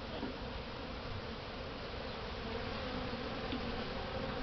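A honeybee colony buzzing steadily, many bees in the air around an opened hive.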